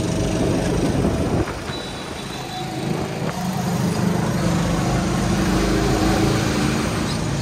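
Go-kart's small engine running as the kart drives around the track. It eases off about a second and a half in, then picks up again over the next few seconds.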